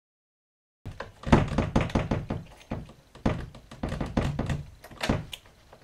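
A run of irregular knocks and thuds in clusters, starting about a second in after silence, like something being handled or set down on a hard surface.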